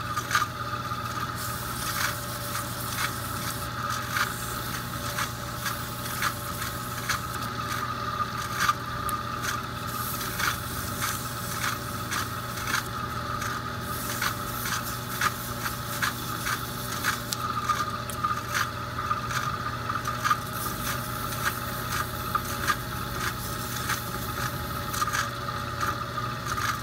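Lathe running steadily with a pool cue spinning in it, while 800-grit sandpaper is held against the Kamui Black soft leather tip and ferrule, making a scraping, rubbing sound with many small irregular ticks over the motor's hum.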